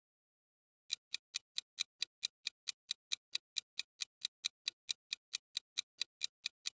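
Clock-ticking sound effect counting down the time to answer, evenly spaced sharp ticks at about four and a half a second, starting about a second in after a moment of silence.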